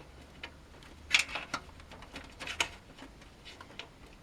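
Light, irregular clicks and taps of a SATA cable and its plastic connector being fed through a computer case's cable-management holes, a few in a cluster about a second in and more around the middle.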